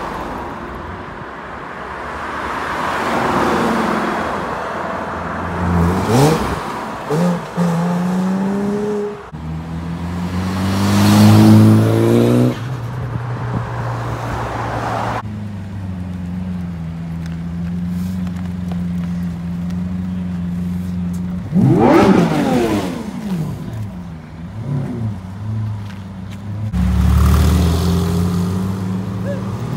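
Performance car engines accelerating and revving one after another, the pitch rising and falling with each pass, with a steady engine note in between. Near the end a Lamborghini Aventador's V12 comes in loud and low.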